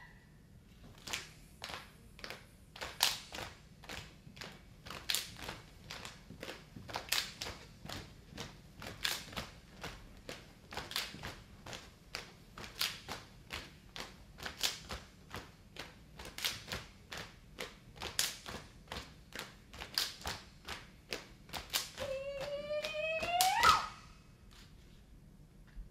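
Saman dancers' unison body percussion: hand claps and slaps struck together on a steady beat of about two a second. Near the end a rising shout climbs into one loud final slap.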